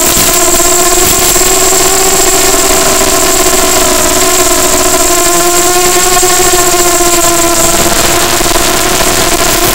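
FPV drone's motors and propellers whining steadily, the pitch drifting slightly up and down with the throttle, over a steady hiss and a thin high tone.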